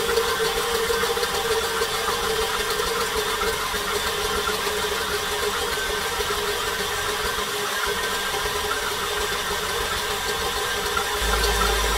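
Electric tilt-head stand mixer running steadily at high speed, its beater creaming butter and brown sugar in a metal bowl.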